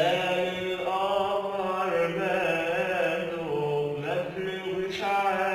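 A man's voice singing a long, wordless, wavering melismatic line, a cappella with no audio effects, with a short break and a fresh attack near the end.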